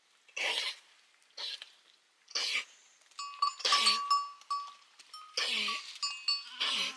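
Sheep and goats bleating, about six short calls roughly a second apart. From about three seconds in, a steady high ringing tone sounds along with them.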